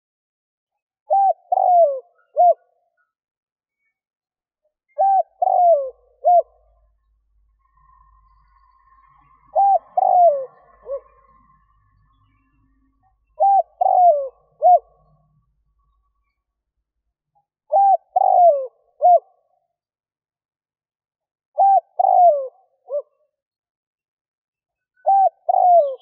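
Spotted dove cooing its three-note call: two quick coos and a shorter third, each falling in pitch. The phrase repeats seven times, about every four seconds.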